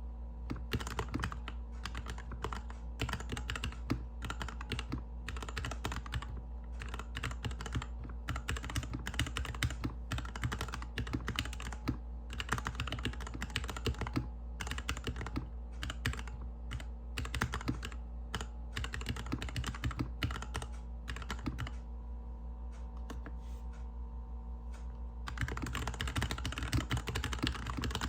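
GK61X mechanical keyboard with stock Cherry MX Hyperglide Black linear switches, a stainless steel plate, a plastic case and DSA keycaps, typed on slowly and steadily on a bare desk. The owner says the switches are still scratchy. Near the end the typing stops for about three seconds, then resumes faster and denser.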